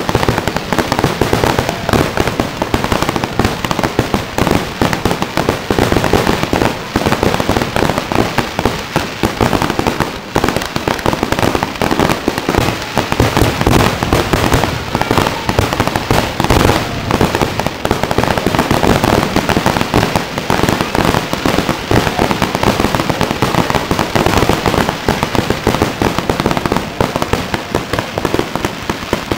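Fireworks display in a heavy barrage: shell bursts, bangs and crackles follow one another so closely that they merge into one continuous racket with no break.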